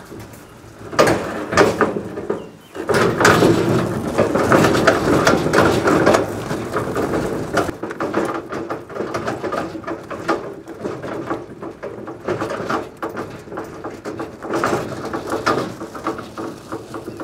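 Two-wheel hand truck loaded with a pickup door rolling out over concrete, then crunching and rattling over loose gravel from about three seconds in, with footsteps on the gravel.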